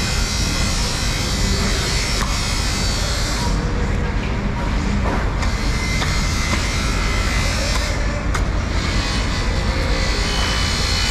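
A steady, loud machine-like drone with voices in the background, and a single sharp knock about eight seconds in.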